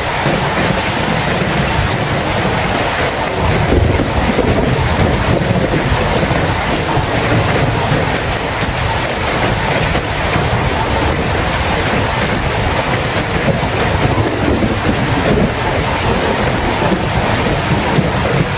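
Heavy, steady rain, a dense hiss with a constant low rumble beneath it.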